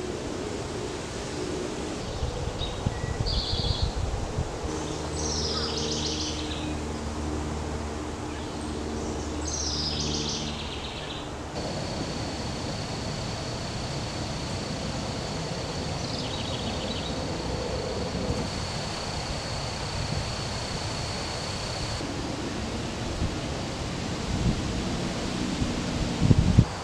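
Outdoor woodland ambience of rustling leaves and wind noise, with short bird calls several times in the first half and a thin steady high-pitched whine through the middle. A low steady hum sits underneath for several seconds early on.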